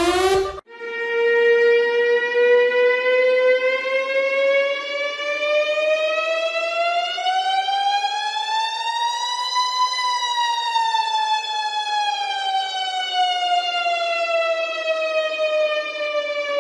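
Emergency alert siren sounding one slow wail: the pitch rises steadily for about nine seconds, then falls back over the next six or seven.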